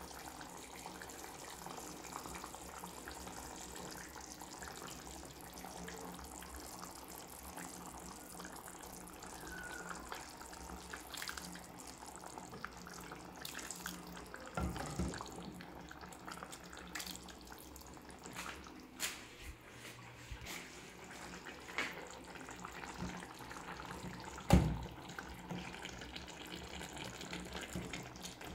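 Gravy simmering in a steel pot, a steady watery hiss with bubbling, as it is spooned and poured over stuffed green bell peppers. From about halfway come scattered clicks and knocks of a spoon or pepper against the pot, the loudest a sharp knock near the end.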